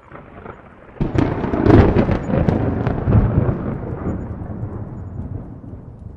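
Thunder with no rain: a faint rumble, then a sharp crackling clap about a second in, followed by a long low rumble that slowly fades.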